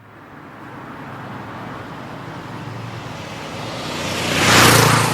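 Traffic sound effect: a road vehicle approaching, growing steadily louder, and passing by about four and a half seconds in, then starting to fade.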